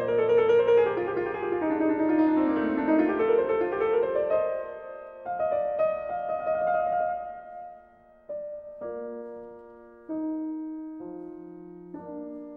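Piano music: a quick cascade of notes sweeping down and back up, then slower chords struck one at a time, each fading before the next.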